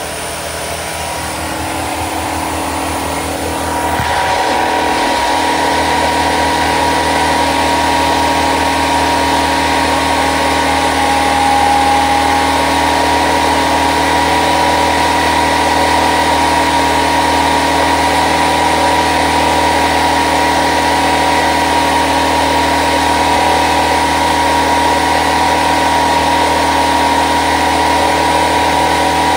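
A machine running steadily with a constant, multi-toned hum, growing louder over the first few seconds and then holding even.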